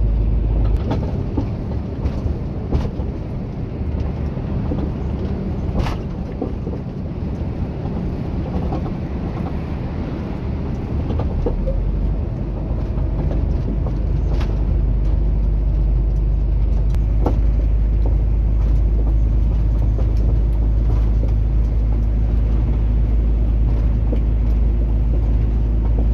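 Steady engine and road noise inside a truck's cab at highway speed, with a deep low rumble. The rumble eases about a second in and grows louder again from about twelve seconds in, and a few faint clicks are heard along the way.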